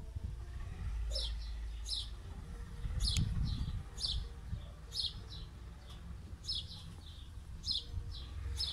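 A small bird chirping repeatedly, about once a second. Each call is a quick high note falling in pitch, followed by a softer second note. A steady low rumble runs underneath.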